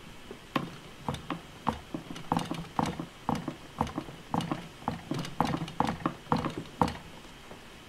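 Fingers pressing and pushing a lump of Play-Doh into a mould on a hollow plastic playset base: a run of irregular taps and knocks, about three a second, that stops about a second before the end.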